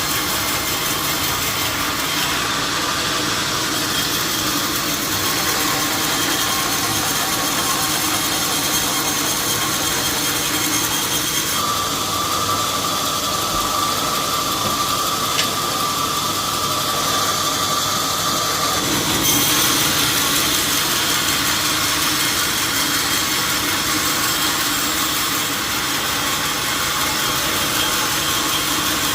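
Sawmill machinery running steadily, a continuous mechanical drone with a faint steady whine. Its tone shifts abruptly about twelve seconds in and again about nineteen seconds in.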